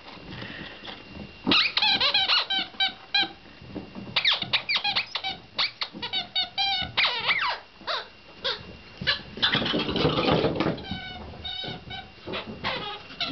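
Rubber chicken squeaky toy squeaking again and again in quick runs of short squeals with brief pauses between them, as a West Highland white terrier bites down on it.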